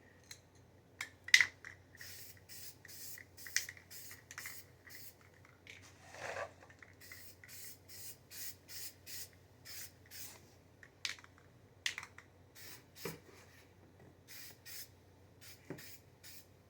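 Spray paint hissing out in many short, repeated bursts, with a few sharp clicks in between.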